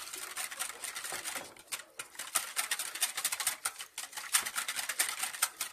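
Wire whisk beating yogurt and water in a bowl: a fast, uneven run of clicks and taps as the wires strike the bowl, easing off briefly twice.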